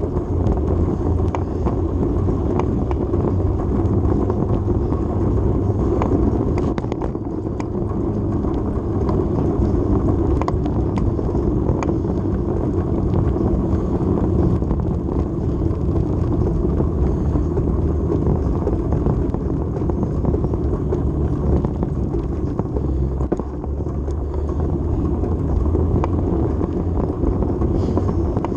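Steady wind rush and road rumble from a bicycle rolling over pavement, picked up by a handlebar-mounted GoPro, with a few faint clicks and rattles.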